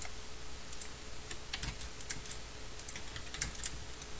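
Computer keyboard keys being pressed: irregular light clicks, some in quick pairs, over a faint steady hum.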